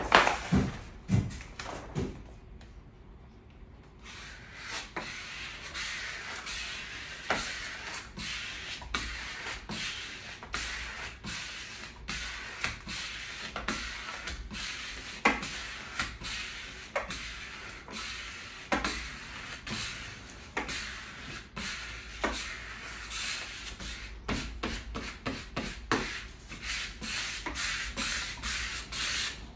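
Hand squeegee rubbing etched-glass vinyl film down onto a window pane in repeated short strokes, mixed with the crinkle of the paper backing being peeled away. A few sharp knocks come in the first two seconds, before a short quiet gap.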